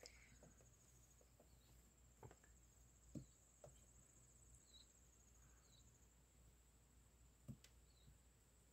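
Near silence: a faint, steady, high insect trill runs throughout, with a few soft clicks scattered through it.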